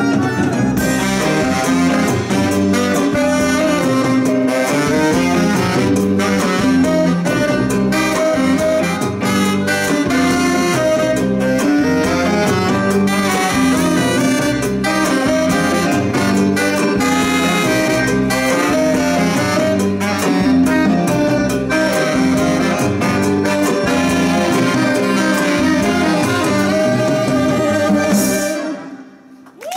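Live band playing an instrumental passage, two saxophones in front over a bayan button accordion, electric guitar and drums with a steady beat. The music cuts off suddenly near the end.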